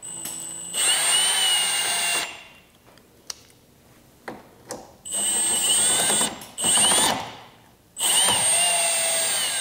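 Milwaukee Fuel brushless cordless drill/driver backing out Phillips screws from a plastic truck grille: its motor whines in four short runs with quiet pauses between them, the first rising in pitch as it speeds up.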